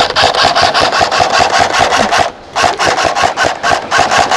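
Airsoft electric gun firing full-auto: a fast, even rattle of shots over the gearbox whine, in two long bursts with a short break a little past two seconds in.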